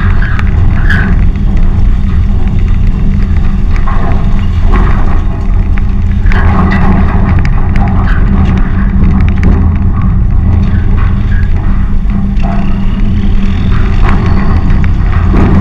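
Combine's engine running steadily as the machine drives along, a loud low rumble, with the rattle and occasional clanks of loose sheet metal as it rolls over bumps onto a rough field lane.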